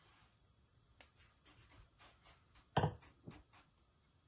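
Granulated sugar pouring from a bowl into a nonstick pan with a brief hiss, then light ticks and scrapes in the pan as it is spread with a spatula. A sharp knock about three seconds in, and a smaller one just after.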